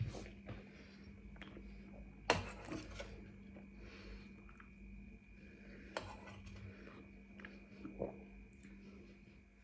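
Quiet eating sounds: a few soft clicks and taps of food and utensils being handled, with chewing, the sharpest click about two seconds in, over a faint steady hum.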